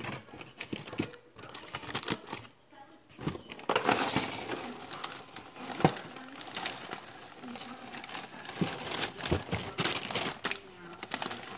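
A cardboard cereal box being handled, then its plastic inner bag crinkling as small square cereal pieces are poured out, pattering and rattling into a bowl from about three and a half seconds in.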